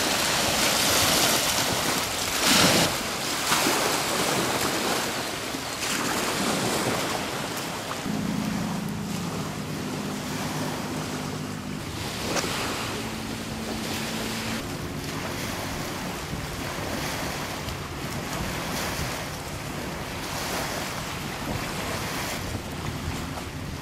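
Wind-driven waves splashing and breaking on a lake shore, with strong wind rumbling and buffeting the microphone and two louder gusts a few seconds in. A faint steady low hum joins about a third of the way through.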